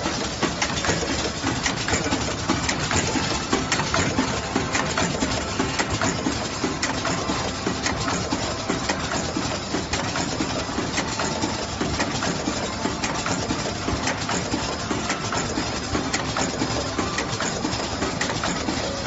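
Automatic wet wipe packing machine running at a steady pace: a dense, continuous mechanical clatter of many rapid clicks and knocks.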